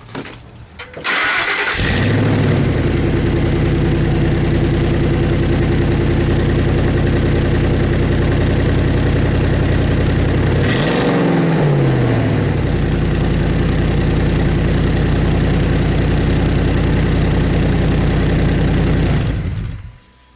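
A truck engine is cranked and catches, then idles with a loud rumbling through a MagnaFlow side-exit dual exhaust. A cracked tin patch at the muffler-to-pipe joint leaves it sounding almost unmuffled, as if it came straight off the headers. It is revved once about halfway through and shut off near the end.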